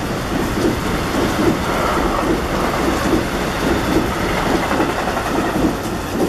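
New Jersey Transit passenger coaches rushing past at speed: a steady rumble with repeated clatter of wheels on rail, easing off near the end as the last car clears, over the hiss of rain.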